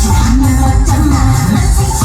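Loud live pop music played over a concert PA, with heavy bass.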